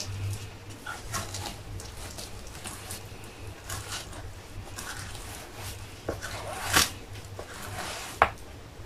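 Filleting knife slicing a monkfish tail off its backbone on a plastic cutting board: faint scraping and soft clicks of the blade, with two sharper knocks about seven and eight seconds in. A low steady hum runs underneath.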